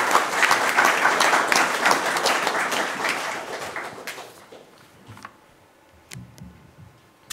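Audience applauding, a dense patter of many hands clapping that dies away about four seconds in. After it, a few faint knocks.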